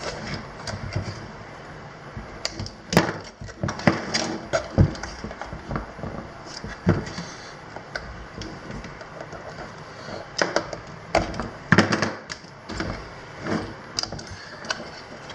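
Hands routing and bundling the Ducati 749's main wiring harness: irregular clicks, knocks and rustles of wires and plastic connectors being moved about.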